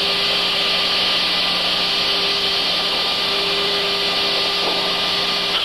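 Steady loud hiss with a constant multi-tone hum: C-130 turboprop engine and propeller noise carried over an open crew intercom microphone. It cuts off abruptly near the end.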